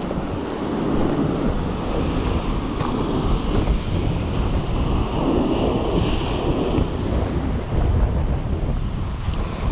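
Sea surf breaking and washing over shoreline rocks, with wind buffeting the microphone in a heavy low rumble.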